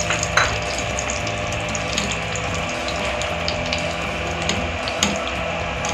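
Breaded chicken cutlets deep-frying in hot oil: a steady sizzle with scattered crackling, and a sharper click near the start and another near the end.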